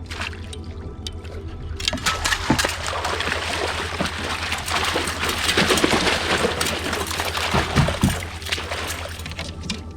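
Water splashing and sloshing for about seven seconds, dense and irregular, likely a hooked sockeye thrashing at the surface. Background music with steady held tones plays throughout.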